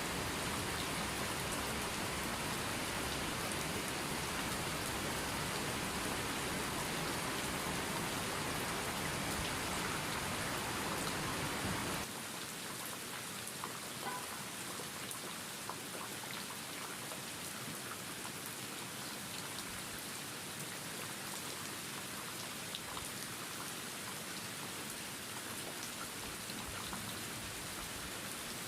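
Steady rain falling. About twelve seconds in it changes abruptly to a quieter, thinner rain with scattered individual drops ticking.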